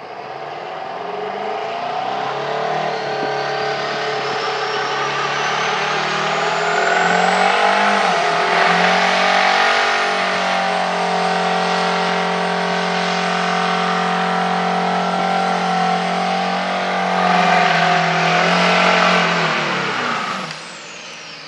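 Diesel drag semi truck doing a burnout: the engine climbs in revs over the first several seconds, holds at high revs with the rear tyres spinning, then drops away near the end. A thin high whine rises alongside it early on.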